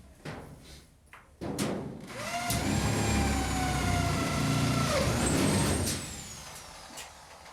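An electric power tool's motor spins up, runs steadily for about three seconds and winds down, after a couple of knocks from handling metal parts.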